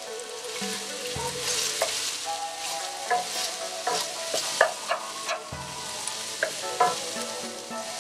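Sliced red onions sizzling in hot oil in a wok, stirred with a wooden spatula that scrapes and knocks against the pan several times. Soft background music plays underneath.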